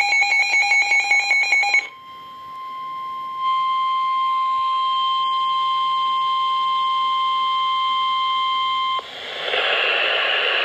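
NOAA Weather Radio Emergency Alert System signal: the end of a rapidly chattering digital SAME header burst, then after a short gap the steady 1050 Hz weather-radio warning alarm tone, which cuts off about nine seconds in and gives way to receiver hiss.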